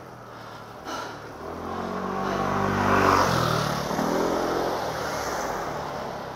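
A motor vehicle passing on the road: its engine note grows louder, is loudest about three seconds in, then drops in pitch as it goes by and fades away.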